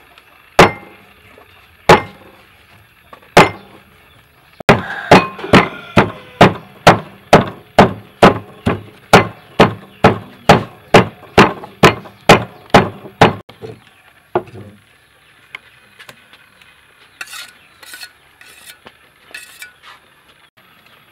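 Steel cleaver chopping fish on a wooden cutting board, mincing it into a paste: three single strikes, then a steady run of about two and a half chops a second for some eight seconds, and one last chop. A few faint, light knocks follow near the end.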